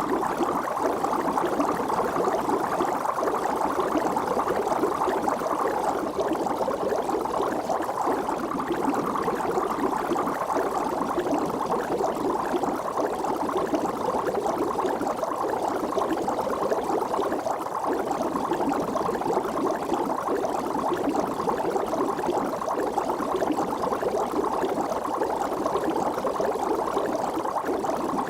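Water bubbling steadily and without pause, a dense run of many small bubbles at an even level.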